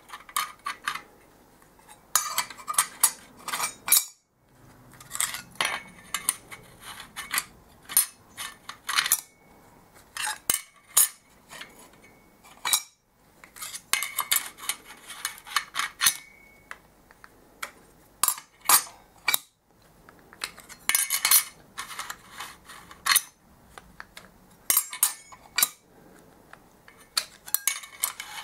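Steel and friction clutch plates from a BMW F650GS clutch clinking against each other and against the clutch basket as they are lifted off a stack one at a time and slid into the basket. The clinks come in irregular clusters with short pauses between them.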